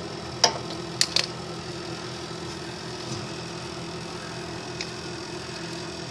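Three sharp clinks of hand tools working on a snowblower's auger housing in the first second or so, and a faint one near the end, over the steady hum of a running space heater.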